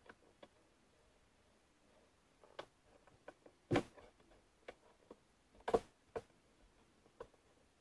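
Cardboard jigsaw puzzle pieces being handled on a table: scattered light clicks and taps as pieces are picked up, set down and pressed together, with two louder knocks a little past the middle.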